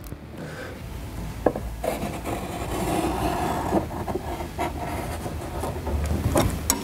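Paint pen tip rubbing along a ruler's edge on a plastic inner fender liner as a trim line is marked, with a few light clicks.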